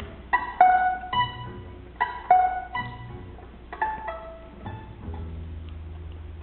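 Roma swing music on violin, acoustic guitar and double bass: short plucked string notes, then about five seconds in a low held note from the double bass, played with the bow.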